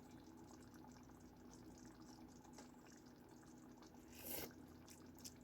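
Near silence: faint kitchen room tone with a steady low hum, and one brief soft sound about four seconds in.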